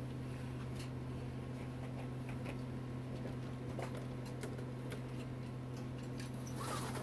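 Steady low hum with scattered faint clicks and taps.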